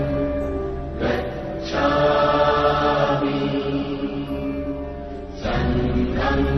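Buddhist devotional chant music: long held chanted notes over a steady low drone, with new phrases coming in about a second in, just before two seconds, and again about five and a half seconds in.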